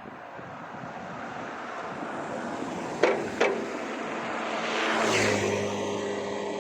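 A motor vehicle passes, its noise swelling to a peak about five seconds in and settling into a steady engine hum. Two sharp clicks come about three seconds in.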